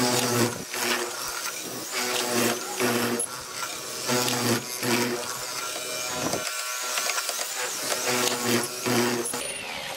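Hollow-chisel mortiser cutting a mortise in a hardwood door-frame post, the motor hum swelling and easing about once a second as the chisel and auger bit are plunged into the wood.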